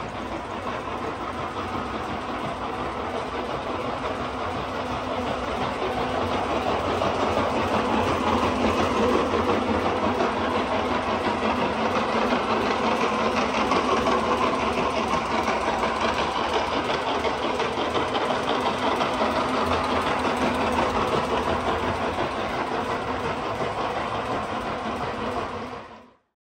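Stanko 7A420 vertical slotting machine running, its ram working up and down with a steady mechanical running noise that grows a little louder over the first few seconds and then fades out near the end.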